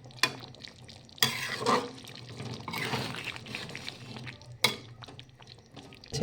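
A utensil stirring and scraping thick cooked chicken curry in a pan, with a few sharp knocks of the utensil against the pan.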